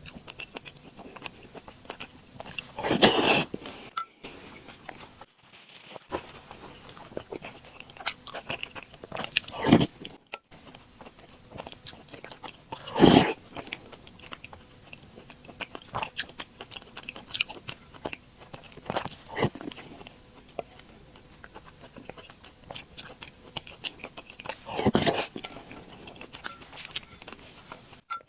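Close-miked eating: chewing soft glutinous rice balls (tangyuan) in sweet soup, with small wet mouth clicks throughout and four louder, half-second eating noises spread across it.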